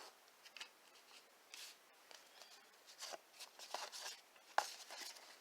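Faint, scattered swishes and light clicks of trading cards being slid and flipped one by one in the hands.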